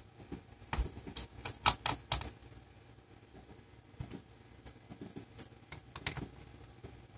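Irregular light metallic clicks and taps of a small screwdriver on the tiny battery screws in an opened laptop's chassis, busiest in the first two seconds and scattered after.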